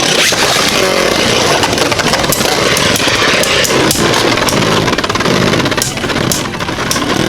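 Two Beyblade Burst spinning tops, Vise Leopard and Screw Trident, whirring and grinding against each other in a plastic stadium bowl, with repeated sharp clacks as they collide. The whirring grows quieter near the end as the tops lose spin, Screw Trident having used up its power early.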